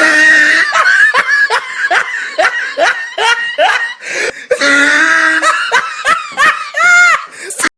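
Loud, hearty laughter from several people, in rapid repeated 'ha' pulses. It cuts off abruptly near the end.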